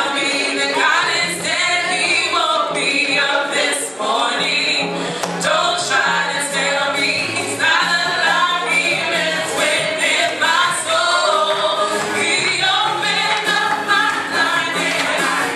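Gospel praise-and-worship singers singing in harmony through microphones, with a low bass line underneath.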